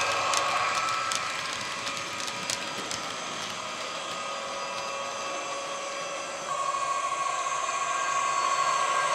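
ESU HiFi sound decoder in a model ÖBB Class 2016 diesel locomotive playing a steady diesel engine drone through a passive radiator speaker, with a few light clicks in the first three seconds. About six and a half seconds in it grows louder, with a stronger steady tone.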